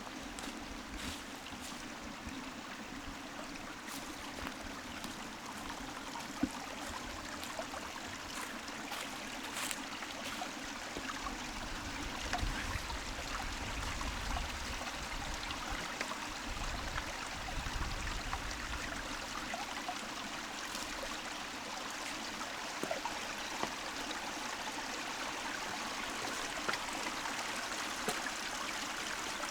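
A stream running steadily, a continuous rush of flowing water. Wind gusts on the microphone add a low rumble twice around the middle.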